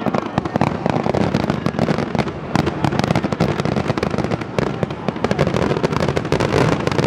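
Aerial firework shells bursting in quick succession: a dense, continuous run of bangs and crackles.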